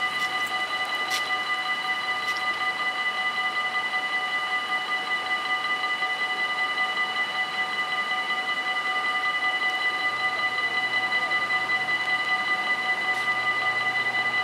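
Mechanical level-crossing bells on an automatic half-barrier crossing ringing continuously with a fast, even ringing: the warning that the barriers are down and a train is approaching.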